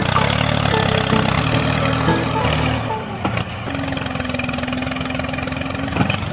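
Tractor engine running steadily, joined by a steady hum about four seconds in.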